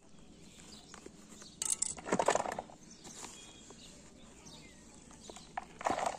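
Hands scraping, crumbling and pressing loose dry soil in a woven plastic grow bag, with the sack rustling. There is a loud rustling scrape about two seconds in and another near the end.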